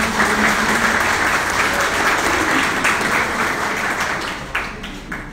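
Audience applauding, dying down near the end to a few last claps.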